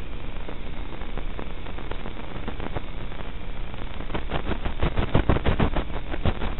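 Steady hiss of static from an analog FPV video receiver's audio channel, broken about four seconds in by a rapid run of crackling clicks as the radio link picks up interference.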